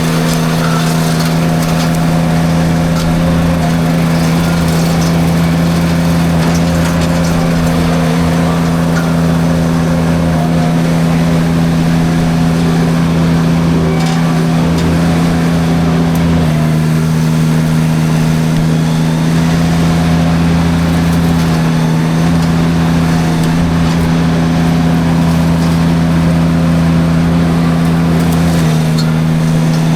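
Derette V1000 mini skid steer's engine running steadily at high speed, driving a drum forestry mulcher through light brush. The engine's pitch drops slightly about halfway through and again near the end.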